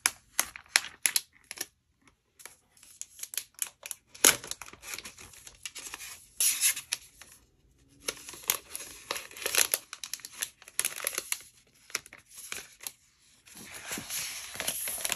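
Frosted protective wrap on a new MacBook Pro crinkling and rustling with many sharp, irregular crackles as it is peeled off the laptop, turning to a steadier rustle near the end.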